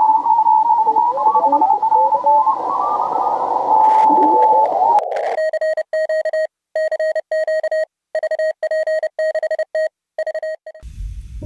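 Morse code (CW) signals heard through a Yaesu HF transceiver's receiver over a hiss: several tones at different pitches, some sliding as the tuning knob is turned across them. About five seconds in, this gives way to a single clean Morse tone keyed on and off, a CW sidetone. Music starts just before the end.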